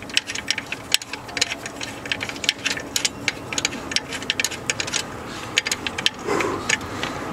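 Ratchet wrench clicking in quick, uneven runs while a bolt on the car's accessory-drive area is turned, with a brief louder scraping or rustling noise about six seconds in.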